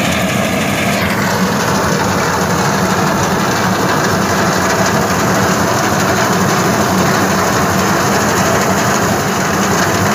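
Sonalika tractor's diesel engine running steadily under load while its front-mounted reaper cuts through standing wheat.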